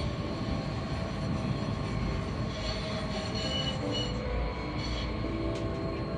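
Running noise inside a moving tram: a steady rumble of wheels on rails with faint motor whine, and short high wheel squeals about three to four seconds in.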